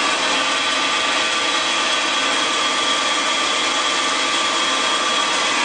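Steady whirring hum of running machinery, an even noise with a few faint steady tones over it and no change in level.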